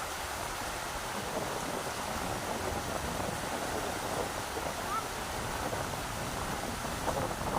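Rushing river water, a steady hiss of flowing water, with strong wind gusting against the microphone as an uneven low rumble.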